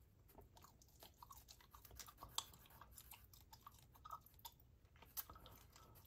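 Faint, close-up gum chewing: irregular little wet clicks and smacks of the mouth, several a second.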